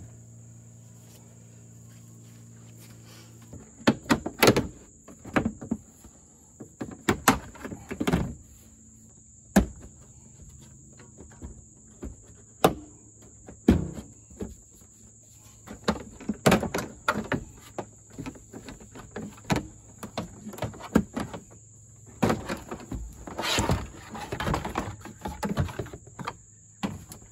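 Knocks, clunks and plastic rattles, coming in quick clusters from about four seconds in, as the seat of a Honda Rancher ATV is unlatched and lifted off and the plastic body parts beneath are handled. A steady high insect drone runs underneath.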